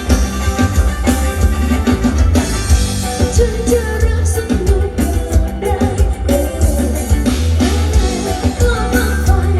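A singer with a band playing a rock-style song, with drums, guitar and a heavy, steady bass.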